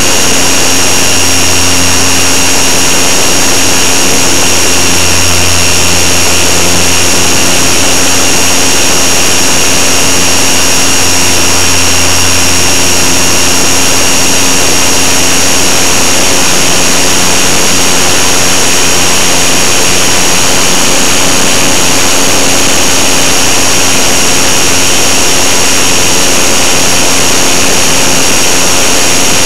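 Electric motor and propeller of a GWS Beaver radio-controlled model plane in flight, heard from a camera on board: a loud, steady high-pitched whine over a dense rush of air noise, with no change in speed.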